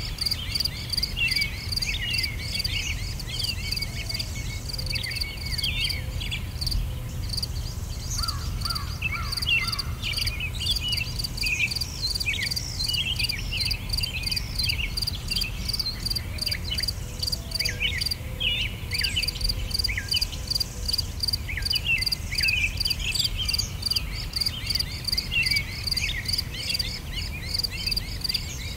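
Crickets chirping in a fast, even pulse, with many short, high, falling chirps over it and a low rumble underneath. The sound runs on unbroken.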